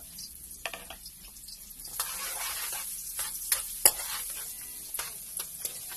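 Chopped garlic and ginger sizzling in hot oil in a steel wok, stirred with a spatula that scrapes and clicks against the pan. The sizzle grows louder about two seconds in, and one sharp knock of the spatula comes a little before four seconds in.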